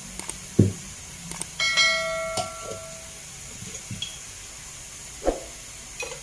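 Subscribe-button animation sound effect: a click, then a bell chime about two seconds in that rings for roughly a second and a half. A faint steady hiss runs underneath.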